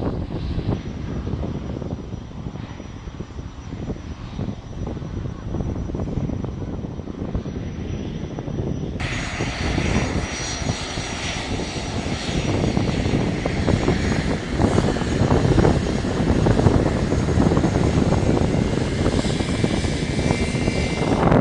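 Airplane engine noise: a dense, steady rumble with a faint whine, growing louder toward the end, with an abrupt change in the sound about nine seconds in.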